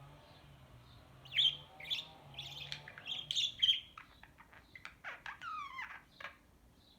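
Budgerigar chattering: a run of sharp chirps and harsh squawky calls for about five seconds, ending with a few quick downward-gliding calls.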